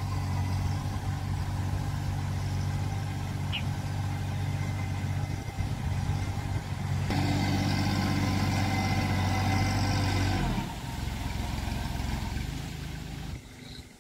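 Compact tractor's engine running under load while tilling between sugarcane rows. It runs steadily at first and grows louder and rougher from about halfway, then eases off about three-quarters through and fades near the end as the tractor moves away.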